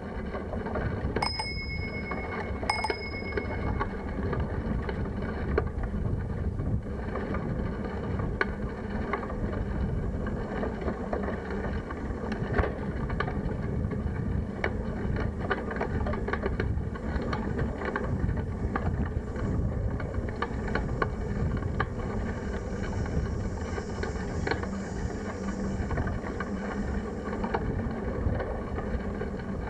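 Bicycle bell rung twice, about a second in and again a second and a half later, each ring fading out. Underneath, the steady rumble of wind and tyres on the road from a handlebar-mounted camera, with scattered rattles and clicks as the bike rolls over the surface.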